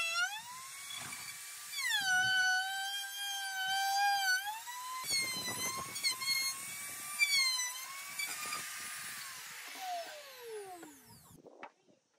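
Handheld trim router running at full speed, cutting along the edge of a wooden tabletop; its high whine dips in pitch each time the bit bites into the wood and recovers. Near the end the motor is switched off and winds down in a falling whine.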